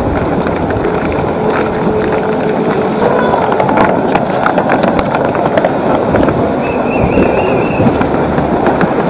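Fast-flowing Zanskar River rushing past the ice shelf, a steady loud roar of water. Footsteps crunch and click on packed snow and ice.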